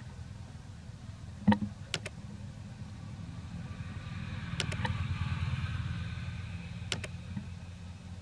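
A steady low engine hum runs throughout, with a few sharp clicks scattered through it and a faint higher whine swelling in the middle.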